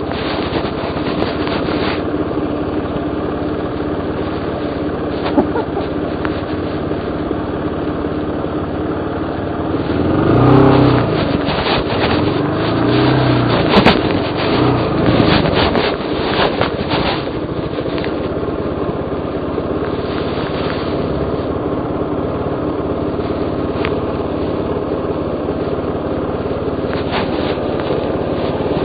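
Suzuki DR350's single-cylinder four-stroke engine running steadily on a rough climb, revving up and down twice about ten to thirteen seconds in. A few sharp knocks and clatter follow, around fourteen to seventeen seconds in.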